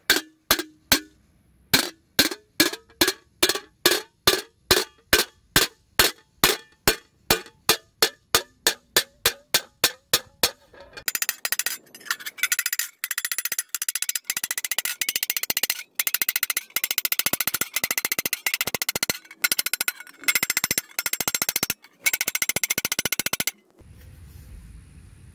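Steel saw-blade disc resting on a brake drum being beaten with a small peen hammer to dish out a cymbal bell: steady blows about three a second, each with a short metallic ring, then from about halfway a much faster run of hammering with a few short pauses, stopping shortly before the end.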